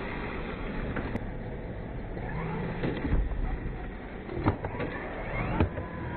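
Electric motors of a radio-controlled monster truck whining as the throttle goes up and down. There are sharp knocks of the truck landing, about four and a half and five and a half seconds in.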